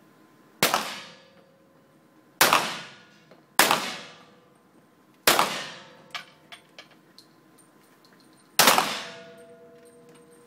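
Five single shots from centerfire target pistols fired one-handed, irregularly spaced at about 1 to 3 seconds apart, each with an echoing tail in the range hall.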